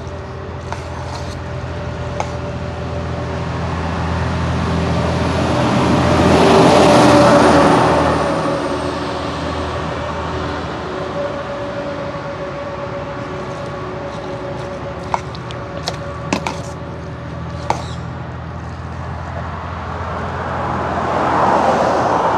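A vehicle passing, its noise swelling to a peak and fading away over several seconds, over a steady low hum. A few sharp clicks come later, and a second swell builds near the end.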